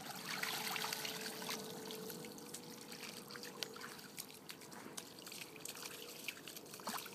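A flat-coated retriever wading and splashing through a shallow muddy puddle, the water sloshing and trickling around its legs, loudest in the first second or so.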